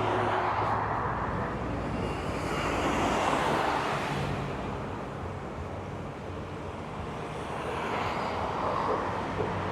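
Road traffic passing along a busy highway, vehicles swelling up and fading away every few seconds over a steady rumble.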